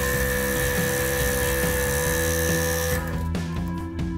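Scroll saw running and cutting through an 18 mm pine board, a steady whine over the blade's rasp, which cuts off abruptly about three seconds in. Background music plays throughout.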